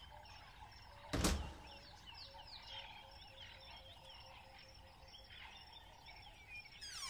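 Faint chirping over a soft, evenly pulsing tone, with a single thump about a second in. At the very end, a falling sweep begins.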